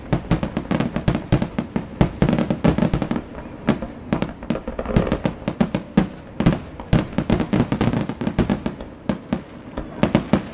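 Consumer fireworks going off in a long run of sharp bangs and crackles, several a second and irregular, with a short lull partway through.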